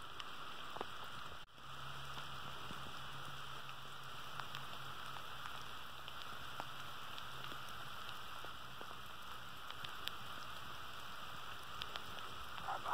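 Steady light rain falling on the grass around the microphone: an even hiss with scattered faint drop ticks. The sound drops out for a moment about a second and a half in.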